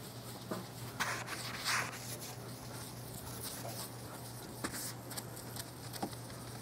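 Scrubbing and wiping on wet car door glass while it is cleaned for window tint film: a scratchy rub about a second in, then light knocks and clicks.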